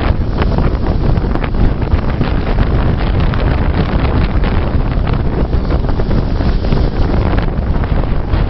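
Strong wind buffeting the microphone: a loud, steady rumble with crackling gusts throughout.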